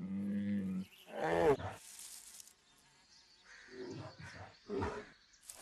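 Brown bear cubs growling and bawling as they play-fight: a steady low call at the start, a wavering cry about a second in, then a few short grunts near the end.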